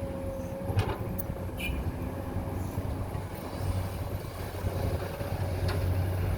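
Engine running steadily with a low hum and a thin, steady whine, with a few faint clicks.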